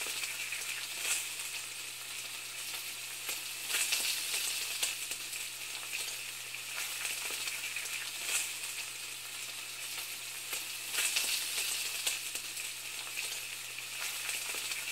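A steady, high crackling hiss with a faint low hum underneath, swelling briefly louder a few times.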